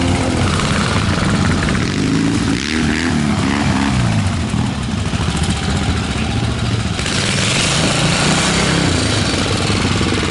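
Rigid-framed Ariel single-cylinder four-stroke trials motorcycle riding a section at low speed. Its engine pitch rises and falls with the throttle about two to four seconds in, then runs more steadily, and a hiss joins in about seven seconds in.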